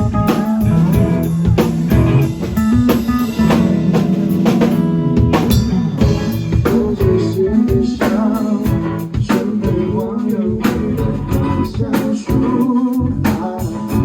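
A rock band playing, with guitars over a drum kit that keeps a steady beat.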